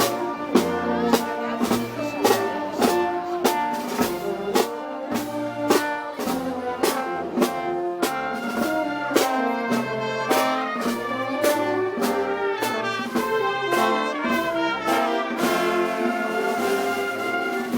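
Brass band with drums playing Moros y Cristianos festival music: trumpets and trombones over a steady beat of drum and cymbal strikes.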